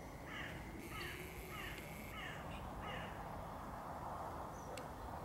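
A bird calling five times in quick succession in the first three seconds, over a steady low background rumble.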